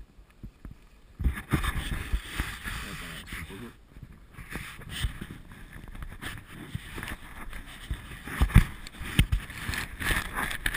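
From about a second in, a rider is sliding down a groomed ski run: edges scrape and hiss over packed snow, with wind buffeting the camera's microphone and occasional low thumps. Before that it is fairly quiet while the rider stands still.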